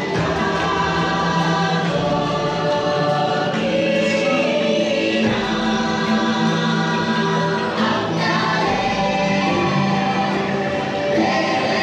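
The attraction's soundtrack: slow choral singing over sustained musical chords.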